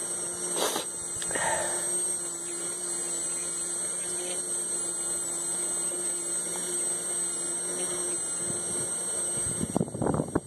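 Electric fuel pump running dry with no fuel flowing through it, a steady hum with a thin high whine. There is a single click about a second in, and wind buffets the microphone near the end.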